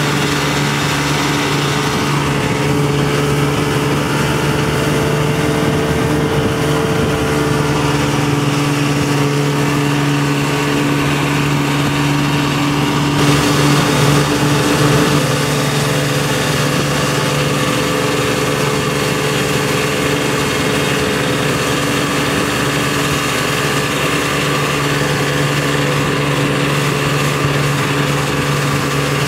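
Towboat's engine running steadily at speed while towing a skier, its hum holding one even pitch, over a wash of water and wind noise.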